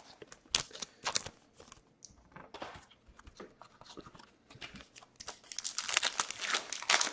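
Trading cards and pack wrappers being handled: scattered light clicks and rustles, growing into denser crinkling near the end.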